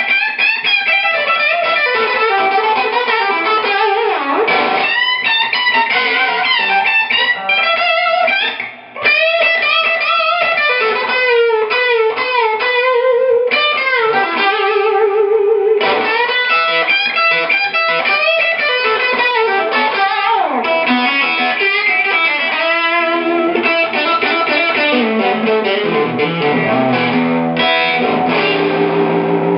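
GRS Les Paul Custom electric guitar played through an Acedo Audio 290 amplifier: fast lead lines with string bends and vibrato, with a brief gap about nine seconds in.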